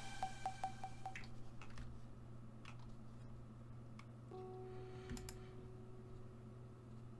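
Electronic music dying away: one note echoes in quick repeats that fade out within the first second, followed by a few faint clicks, and then from about four seconds in a faint held tone.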